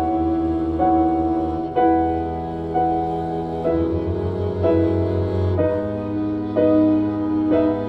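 Slow instrumental music: a piano melody with a new note about once a second over a sustained low bass, which shifts to a new note about halfway through.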